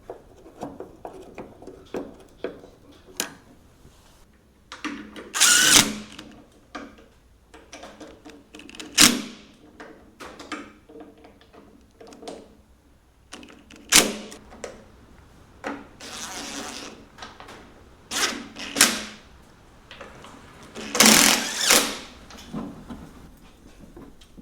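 Tool work on a car door's hinges: scattered clicks and knocks of metal, with several short, louder bursts, the biggest about five seconds in and again near the end.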